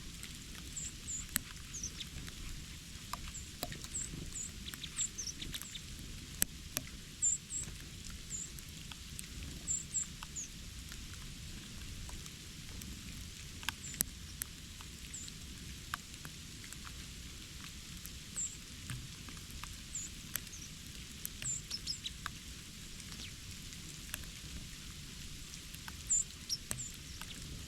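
Small birds giving short, high, thin chirps, scattered and in small clusters, among many faint sharp ticks.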